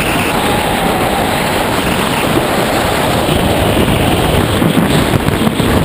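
Wind rushing over a camera microphone under an open parachute canopy, a loud steady rush.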